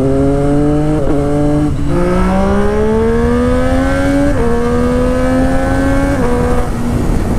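Triumph Street Triple's three-cylinder engine, breathing through an Akrapovic exhaust with the dB killer removed, accelerating hard up through the gears. Its pitch climbs and then drops with a short brap at each upshift: quick shifts in the first two seconds, a longer pull in one gear, another shift about four seconds in and one more near six seconds. The engine fades near the end.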